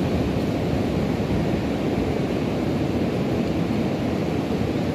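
Steady rushing and buffeting of wind on a phone's microphone, heaviest in the low range.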